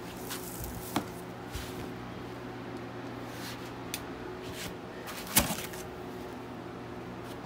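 Cardboard box and foam packing sheets being handled and lifted out: soft rustling and scraping, with a sharp knock about a second in and a louder one about five and a half seconds in, over a steady low hum.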